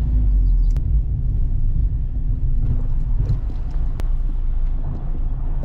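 Mazda MX-5 driving with its top down: a steady low rumble of wind, road and engine noise in the open cockpit, with two brief clicks, one near the start and one a little past the middle.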